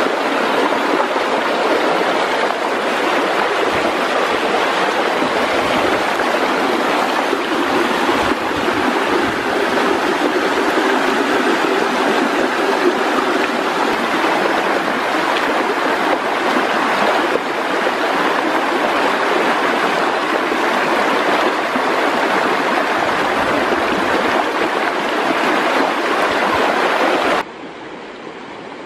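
Loud, steady rushing of a fast, shallow river churning into white water. Near the end it drops suddenly to a quieter, duller rush.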